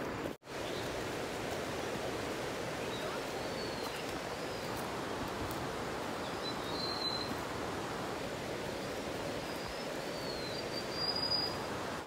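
Steady rush of flowing stream water, with a few faint high bird chirps over it. The sound drops out for an instant about half a second in.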